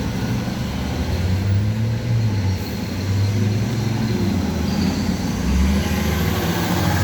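Road vehicle running: a steady low engine drone whose pitch steps up and down over continuous road noise.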